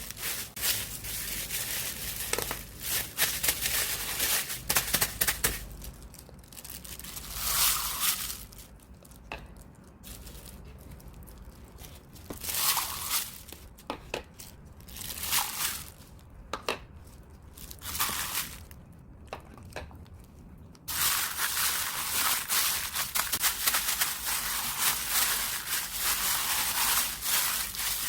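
Water-vinyl slime being squeezed and stretched by hand, giving dense crinkling, crackling pops. It thins out to scattered squishes and pops for a stretch in the middle, then turns dense again about three-quarters of the way through.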